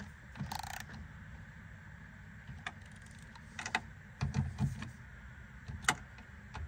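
A cordless driver runs in one short, rapid burst about half a second in, snugging the side mirror's mounting fasteners. Scattered light clicks and a few dull knocks of handling against the door follow.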